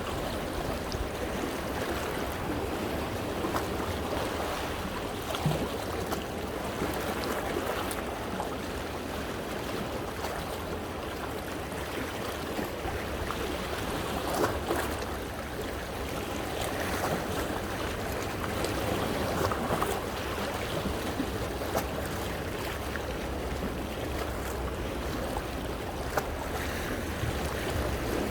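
Sea waves washing in over coastal rocks, water sloshing and splashing among them, with frequent small sharp splashes over a steady rush of surf.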